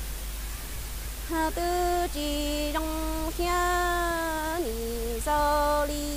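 A woman singing kwv txhiaj, Hmong sung poetry, unaccompanied. After a short pause she holds a run of long, steady notes, each stepping to a new pitch; the longest comes near the middle and drops in pitch at its end.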